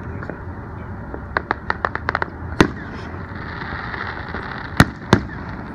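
Fireworks going off: a quick string of about eight crackling pops a little over a second in, then a single loud bang. A hissing crackle follows, and near the end come two loud bangs in quick succession.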